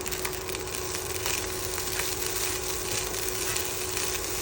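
Fried rice sizzling in a hot pan as it is stirred and tossed, with a spatula scraping and clicking against the pan.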